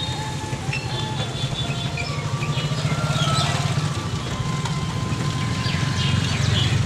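Steady low rumble of an e-rickshaw running along a wet, potholed road, with faint short chirps and noises higher up.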